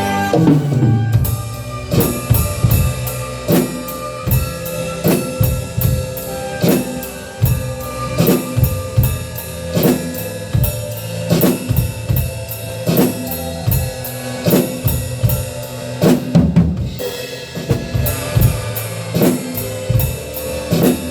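Drum kit played along to a song's backing track: steady kick, snare and cymbal strokes in an even beat over the recorded band, with a brief break and a fill about two-thirds of the way through.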